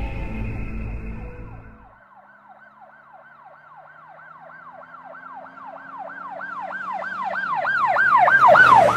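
Eerie music that stops about two seconds in, then an emergency-vehicle siren in a fast yelp, about four wails a second. It grows steadily louder as it approaches and is loudest near the end.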